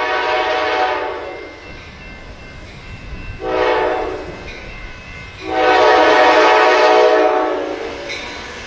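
Diesel locomotive's multi-tone air horn sounding three blasts, long, short, then a longer held one, like the close of a grade-crossing signal, over the low rumble of the approaching train.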